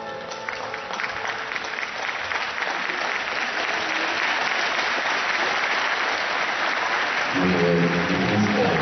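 Audience applauding in an ice rink as the program music stops, the clapping building up and holding steady. A voice comes in over the applause about seven seconds in.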